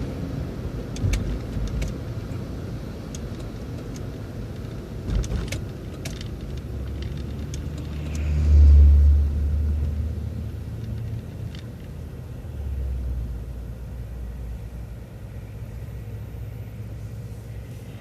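City bus running, heard from on board: a steady low rumble that swells loudly about halfway through, as when the bus pulls away, with scattered rattles and knocks.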